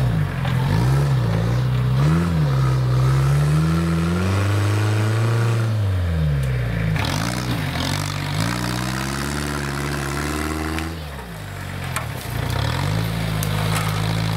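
Small tractor engine revving up and dropping back repeatedly. It climbs and holds high twice, falling away with quick dips in between, then settles to a steady run near the end.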